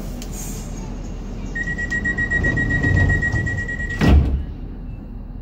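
Docklands Light Railway train's door-closing warning tone, a single steady high beep held for about two and a half seconds, ending as the sliding doors thud shut about four seconds in.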